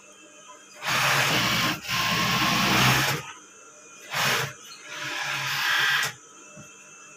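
Industrial overlock (serger) sewing machine stitching fabric in bursts: a run of about two seconds starting about a second in, a brief burst, then another run of just over a second.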